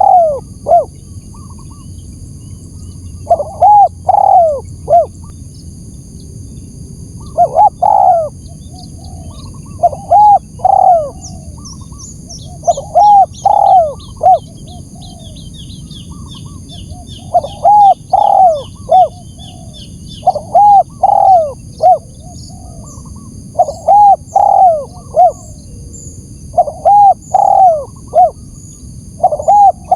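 Spotted dove (tekukur) lure call: loud phrases of two to four arched cooing notes, repeated every two to three seconds. Faint high chirps of small birds come in partway through.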